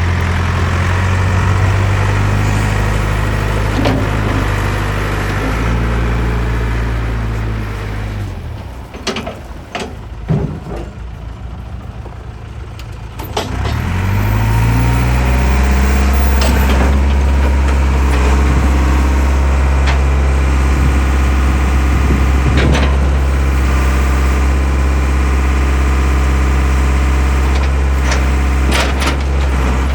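Caterpillar 416C backhoe's four-cylinder diesel engine running, then dying down about eight seconds in. A few knocks follow. About five seconds later it starts again with a rising whine and settles into a loud, steady idle, with a few clanks now and then.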